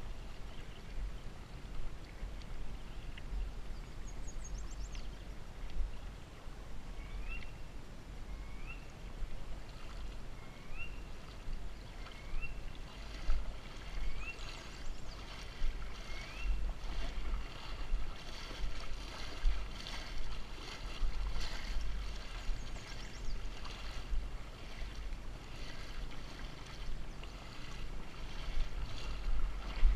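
Water sloshing and lapping against an ATV standing or moving slowly in a flooded pond, with small splashes and crackles through the middle, over a steady low rumble. A short rising chirp is repeated about six times, a second and a half or so apart.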